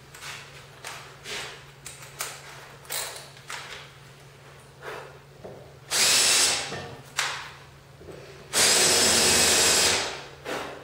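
Cordless drill running into the wooden fence of an MDF miter sled, with its motor whine in two bursts: a short one about six seconds in and a longer, steady one of about a second and a half near the end. Light knocks of handling come before them.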